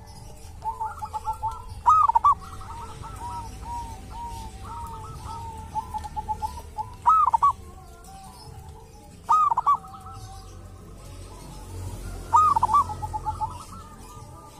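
Zebra dove (perkutut) cooing: four loud rolling phrases a few seconds apart, with softer runs of short coo notes in between.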